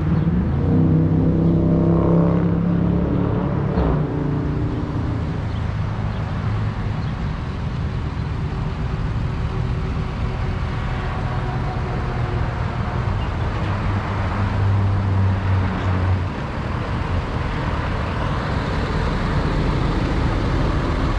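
A motor vehicle engine running steadily with a low hum. A deeper tone in it cuts off suddenly about sixteen seconds in.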